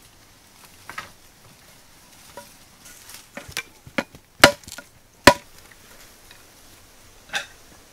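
A series of irregular, sharp chopping knocks, like a blade or tool striking wood, with the two loudest blows about halfway through and a last one near the end.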